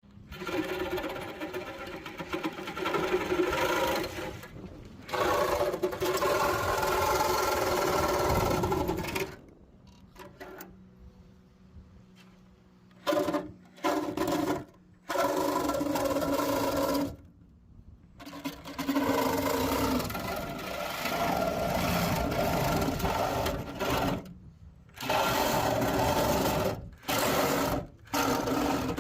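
A power tool cutting through the rusted sheet metal of a van's body corner, running in bursts of a few seconds with short stops between.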